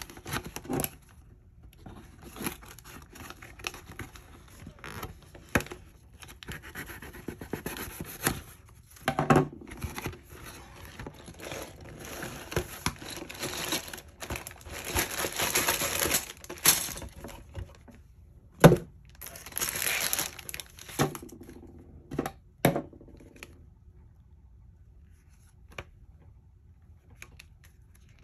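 Glued cardboard Lego box being torn open and its plastic parts bags crinkling, in a run of tearing and rustling bursts, with one sharp knock about two-thirds through. It goes mostly quiet near the end.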